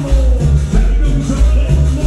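Cumbia played loud over a dance sound system, with a heavy bass beat repeating at an even pace under a melody line and a steady shaker.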